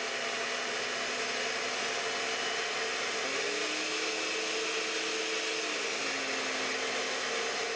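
Hamilton Beach Classic Stand & Hand Mixer (model 64650) running, its motor and beaters turning in an empty stainless steel bowl. The motor pitch steps up about three seconds in and drops back about three seconds later, as the speed is changed.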